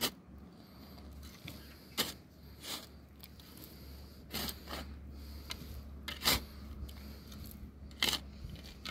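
Steel spade scooping and scraping loose soil and tipping it into a planting hole, backfilling around a sapling: about seven short scrapes at irregular intervals of a second or two, the loudest about six seconds in.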